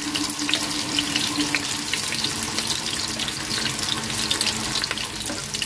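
Batter-coated paneer and vegetable kebab skewers shallow-frying in hot refined oil over low heat: a steady sizzle dotted with fine crackles.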